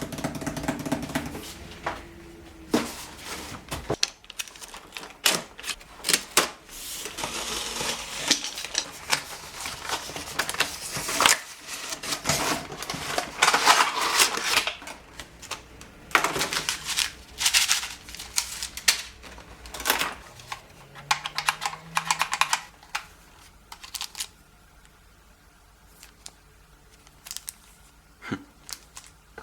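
Packaging being handled by hand: a run of sharp clicks and taps, with a dense crinkling rustle through the middle, then quieter, sparser clicks near the end.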